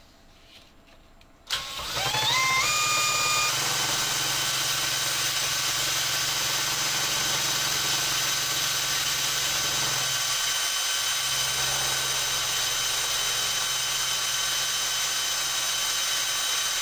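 Cordless drill starting up about a second and a half in, its whine climbing in steps as it comes up to speed, then running steadily. It spins a 3D-printed part in its chuck against a sanding disc to true its surface.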